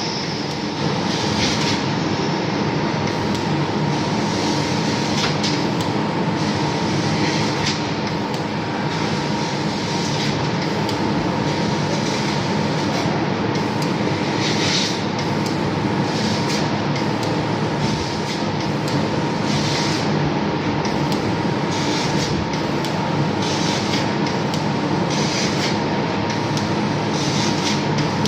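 CNC machine tool running: a steady mechanical din with a constant whine, and short hissing surges every couple of seconds.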